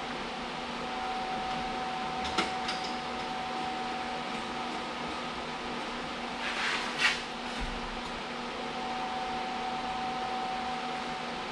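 Steady mechanical hum with a faint whine, broken by a sharp click about two seconds in and a short metallic scrape and rattle around seven seconds, as a steel exhaust tailpipe is turned and shifted in its loose clamps and hangers.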